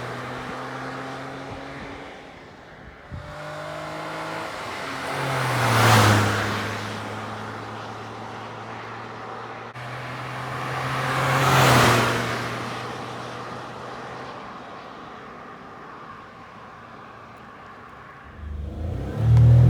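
A car engine runs steadily while two vehicles pass, each swelling and fading. Near the end, an engine revs up sharply and loudly, likely the Daihatsu Move's 1.0-litre three-cylinder.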